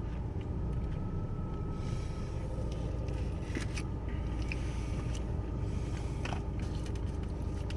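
Steady low rumble inside a car, with a few faint clicks and scrapes from eating.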